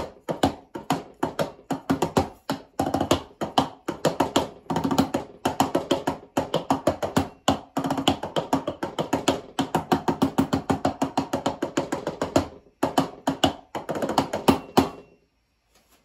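Logic Pro's '80s FM Bass Attack' synth bass played live from Roland SPD-SX pads: a fast run of short bass notes at several pitches, stopping about a second before the end.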